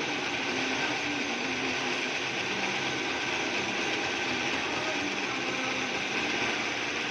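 Drill press running steadily while boring a hole, an even mechanical hum and whir with no change in level.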